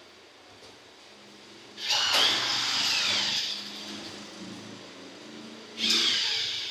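Electric rivet gun setting pop rivets in aluminium panelling: two short motor bursts, about two seconds in and again near the end, each with a whine that drops in pitch as the motor winds down.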